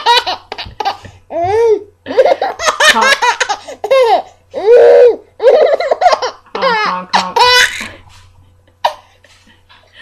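Baby laughing loudly in a string of bursts, dying away about eight seconds in.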